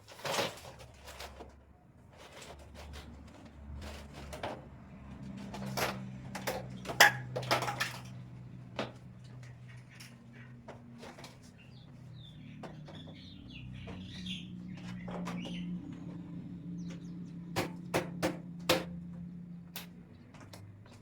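Shoes and shoe-rack parts being handled and set down: irregular clicks and knocks, loudest about 7 seconds in and again near the end, over a low steady hum. A few faint bird chirps come through in the middle.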